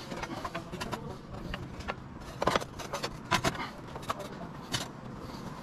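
Roof tiles clacking and scraping as they are handled and set in place on the battens: a few short sharp knocks, the loudest about halfway through and near the end, over a steady low background rumble.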